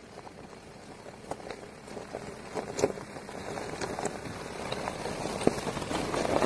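An SUV rolling slowly over loose gravel toward and past the microphone, its tyres crunching and popping on the stones, growing steadily louder as it comes close.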